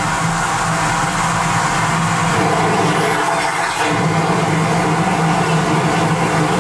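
Wall-hung toilet flushing: a loud, steady rush of water with a low hum underneath, held while the flush button is pressed.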